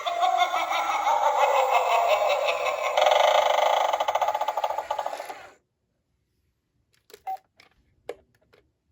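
Gemmy animated Halloween doorbell playing its electronic sound clip through a small, tinny speaker, a warbling tune with many sliding tones, which cuts off suddenly about five and a half seconds in. It is followed by a few short clicks, as of the doorbell button being pressed with no sound in reply, which the owner takes for dead batteries.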